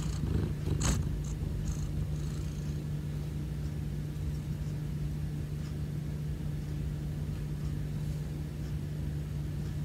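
Persian cat purring close to the microphone over a steady low hum, with a single sharp click about a second in.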